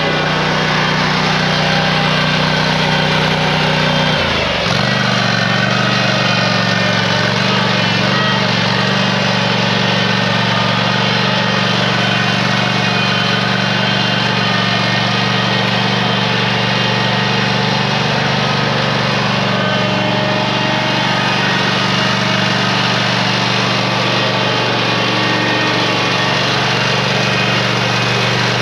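Riding lawn mower engine running steadily, its note shifting slightly about four and a half seconds in.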